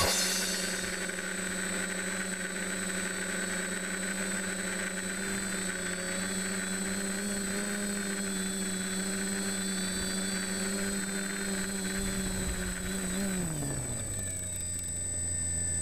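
TBS Discovery quadcopter's DJI brushless motors and Graupner props humming at a steady pitch in flight, heard from the camera on the frame. About thirteen seconds in the pitch drops sharply as the quad sets down in the grass, and the motors settle to a lower, steady hum. A thin, steady high whine sits above it throughout.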